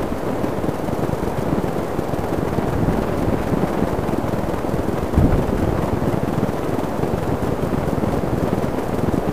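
Wind buffeting the microphone: a steady low rushing noise, with one brief louder buffet about five seconds in.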